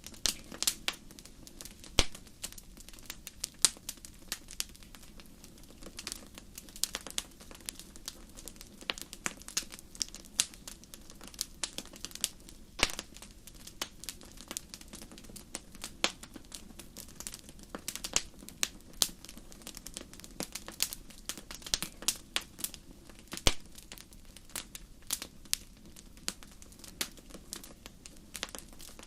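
Crackling wood fire: irregular sharp pops and snaps over a low steady background.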